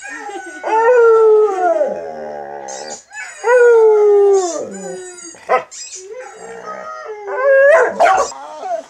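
Chocolate Labrador retriever howling: two long drawn-out howls that slide down in pitch at their ends, then a few short yips and a rising, wavering howl near the end.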